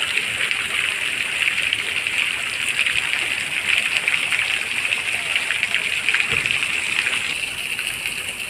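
Steady splashing hiss of water running into a rock-edged garden fish pond.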